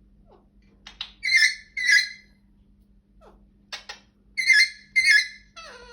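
Pet parrot squawking harshly: two loud calls about a second in, then two more about three seconds later, each pair led by short clicks. Near the end a falling whistled call begins. The squawks are the parrot getting angry.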